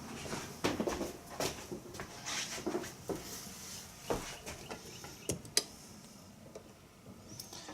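Small hard tools and parts being handled on a workbench: a run of irregular clicks, taps and clinks, thinning out over the last couple of seconds.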